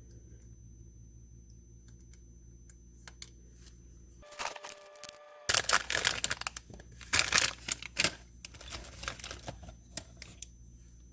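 Irregular crinkling, rustling and scratchy clicking handling noises over a steady low hum. They start about four seconds in, are loudest in the middle and die away near the end.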